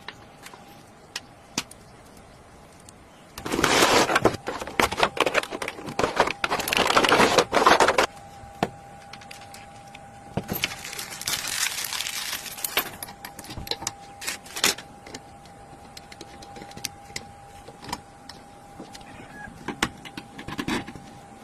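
Homemade remote-control speed boat with a brushless motor running in two bursts of several seconds, a loud rushing noise with many sharp clicks, over a faint steady tone.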